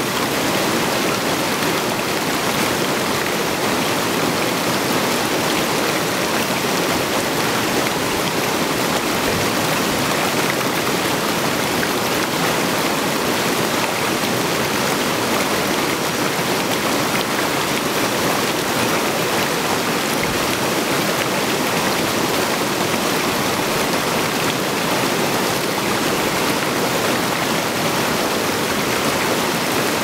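Mountain stream rushing steadily over rocks.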